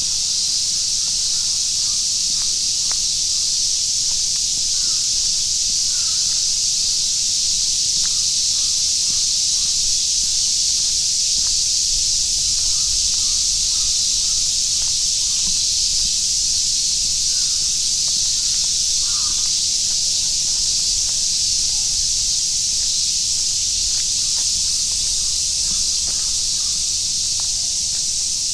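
Steady rain falling, a loud even hiss.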